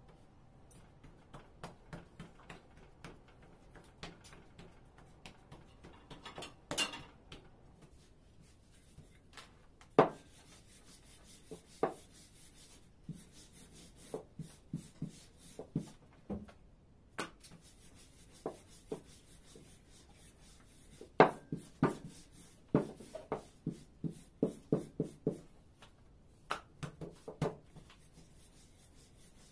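Wooden rolling pin rolling out baklava dough sheets on a floured wooden table: soft rubbing broken by wooden knocks, with one sharp knock about a third of the way in and a quick run of knocks in the last third. Earlier come lighter taps and rubs of hands handling the dough rounds.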